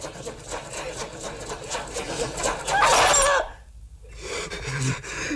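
A man's loud, wavering cry of pain about three seconds in, over a run of quick, evenly repeating sounds.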